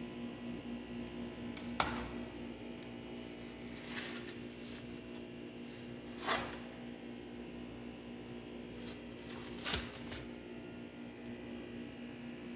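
A steady, slightly pulsing electrical hum runs under four short knocks and clicks, the sounds of lizard carcasses being handled on a metal tray, the third as one is lifted about six seconds in.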